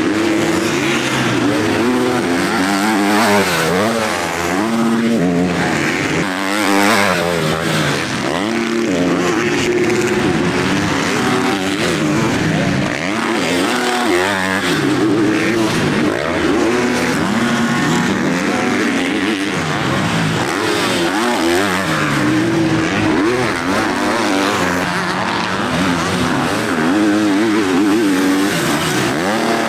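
Several MX2 motocross bikes racing, their engines revving up and down and overlapping at different pitches.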